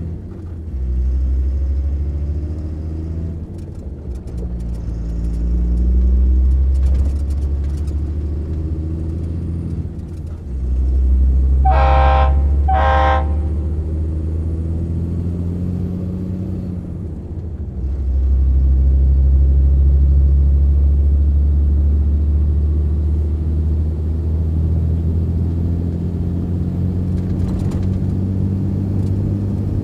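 MAN LE280B 4x4 truck's diesel engine running under way, its note dipping briefly a few times. A little under halfway in, a horn gives two short toots.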